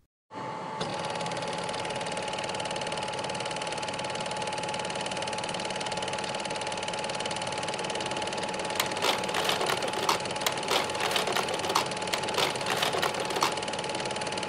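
A small machine running steadily with a constant whir and hum. It starts abruptly. From about nine seconds in, a run of irregular sharp clicks lasts for several seconds.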